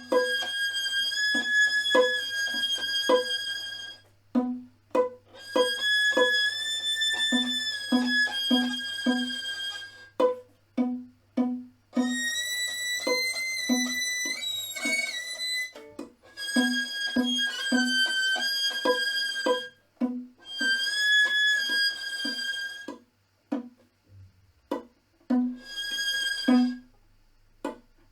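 Instrumental music: a high, violin-like bowed line holding long notes in phrases of a few seconds with short breaks, over a steady pulse of short, low plucked notes about two a second.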